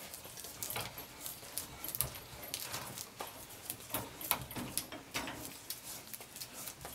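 Bench vise handle being swung and turned on a steel workbench, giving irregular metal clicks and clanks as the jaws are opened to take the brake chamber push rod.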